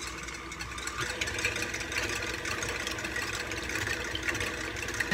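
KitchenAid Ultra Power tilt-head stand mixer running steadily, beating eggs in its stainless steel bowl.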